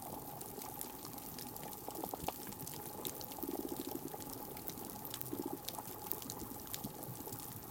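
Underwater reef crackle picked up by a hydrophone: a dense, irregular scatter of sharp clicks and pops from snapping pistol shrimp. Two short, low rattling buzzes stand out near the middle.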